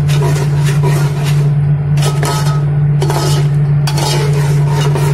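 A metal spoon stirring and scraping masala in a cooking pot, in irregular strokes, the strongest about every second in the second half. A steady low hum runs underneath.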